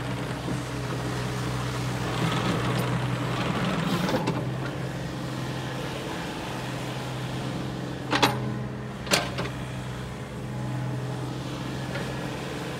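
Takeuchi TB235 mini excavator's diesel engine running steadily as the boom and bucket are worked and the upper structure slews, swelling louder for a couple of seconds about two to four seconds in. Two sharp knocks about eight and nine seconds in.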